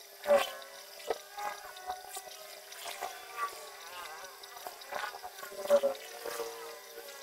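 A 60 W CO2 laser cutter at work: the gantry's stepper motors whine in short glides that rise and fall in pitch as the head moves and changes direction, over a steady hum and irregular ticks.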